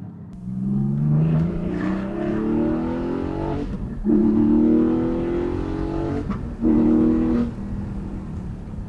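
Porsche 718 Cayman GT4's naturally aspirated flat-six accelerating hard. It rises in pitch through each gear, with two quick breaks for upshifts, then eases off near the end.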